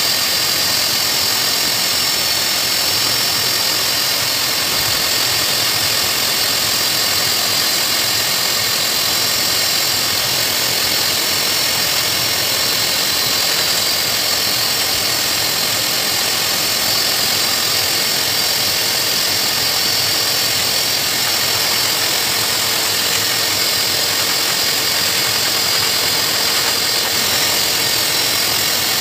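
Dog grooming blow dryer running steadily, its air blowing through a hose nozzle into a Saint Bernard's thick coat: a loud, even rushing noise with a high whine.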